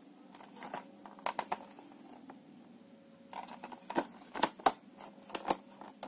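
Hard clear plastic blister packaging of a case fan crackling and clicking as it is handled, in scattered bursts, the loudest about four to five and a half seconds in.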